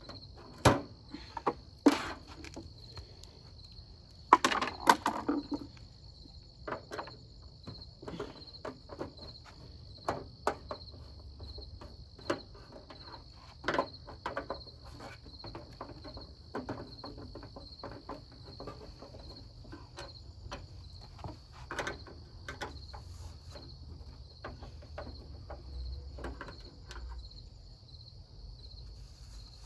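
Scattered clicks, knocks and scrapes as the plastic cabinet of a CRT television is handled and worked on with tools, loudest in a few clusters in the first six seconds. Crickets chirp steadily in the background.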